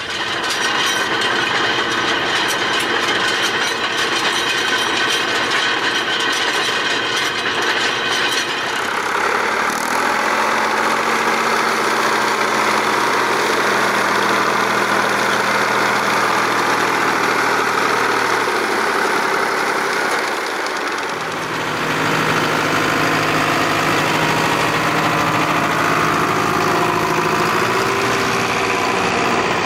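Tractor diesel engines running during field work, in three recordings that cut over about 8 and 21 seconds in. First a tractor pulling a 3 m roller, with a fast clatter. Then an IHC tractor cutting grass with a 1.5 m finger-bar mower, then a tractor pulling a Kverneland four-furrow plough.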